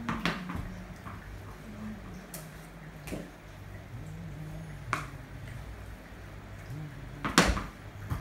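Sharp, separate knocks of a tennis ball on a cricket bat and a tiled floor, about four in all with the loudest near the end.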